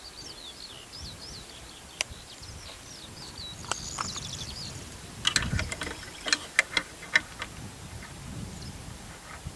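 Birds chirping over quiet outdoor background noise, with a run of sharp clicks and knocks about halfway through.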